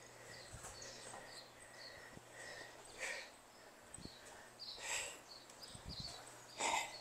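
Faint birds chirping, with a few short scuffs and soft footfalls from two people side-stepping on a tile floor, the loudest scuff near the end.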